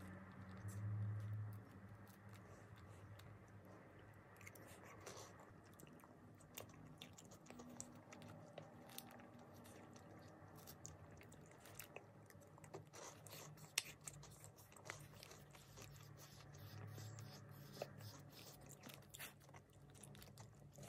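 Faint close-up eating sounds: a small plastic spoon scraping and tapping inside a Kinder Joy plastic tub, with soft chewing and many scattered small clicks.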